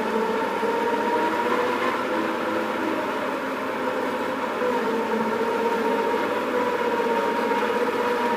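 Heavy machine engine running steadily under load, with a high steady whine held over the engine noise.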